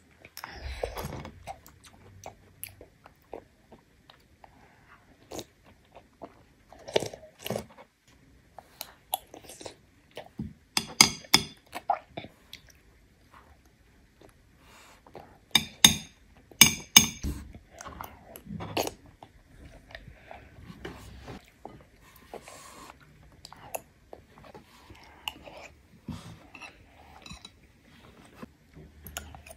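A small child chewing mouthfuls of clear spinach soup with rice and corn, with wet mouth sounds and sharp clicks now and then. The clicks come in two louder clusters on either side of the middle.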